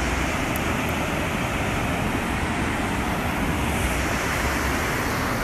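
Fast mountain river rushing over boulders: a steady, unbroken rush of water.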